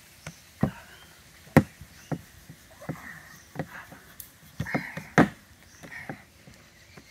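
Wooden rolling pin knocking and clacking against a round wooden rolling board as dough is rolled out into flat discs: irregular sharp knocks, loudest about a second and a half in and again about five seconds in.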